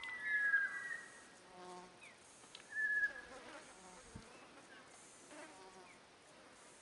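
Flies buzzing close around the microphone, their hum swelling and fading as they pass. The loudest passes come right at the start and again about three seconds in.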